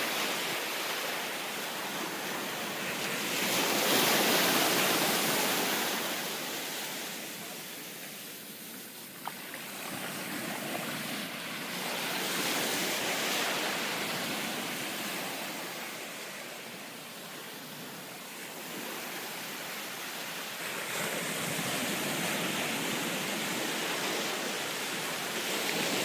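Sea surf washing on a beach, the noise of the breaking waves swelling and fading roughly every nine seconds.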